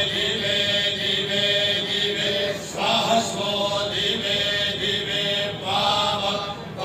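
A group of men chanting Vedic mantras in unison, the leader's voice carried by a microphone. The recitation runs in phrases, with brief breath pauses and a new phrase starting about three seconds in and again near the end.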